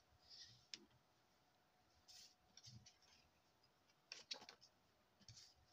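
Near silence with a few faint taps and rustles of paper and a plastic glue bottle being handled on a cutting mat, with a small cluster of taps about four seconds in.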